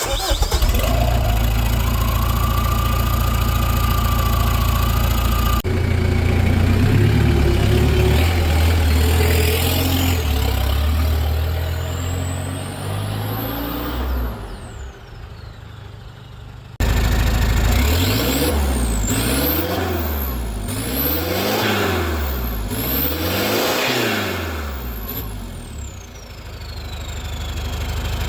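Mitsubishi 4D56 2.5-litre four-cylinder turbodiesel being revved, its turbocharger whistle rising high with the revs and falling as they drop. It gives one long climb, then several quick blips of the throttle, each with its own rising and falling whistle.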